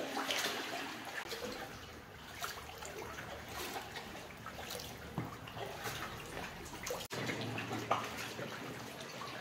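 Kayak paddle strokes dipping into canal water, with trickling and irregular small drips and splashes, inside a canal tunnel.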